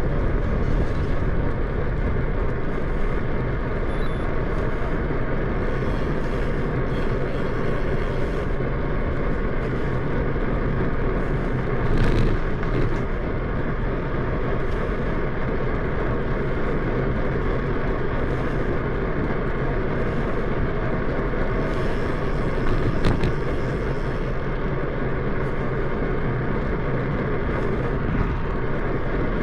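Steady wind rush and rolling road noise while riding a bicycle, with a couple of brief louder moments about twelve and twenty-three seconds in.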